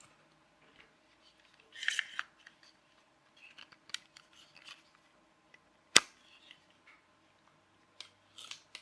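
Small plastic clicks and taps from handling a micro RC toy car and its transmitter, with a cluster of clicks about two seconds in and one sharp, loud click about six seconds in.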